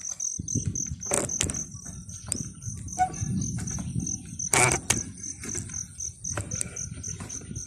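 An insect, likely a cricket, chirping steadily in even pulses several times a second, over rustling with a few sharp knocks, the loudest about four and a half seconds in.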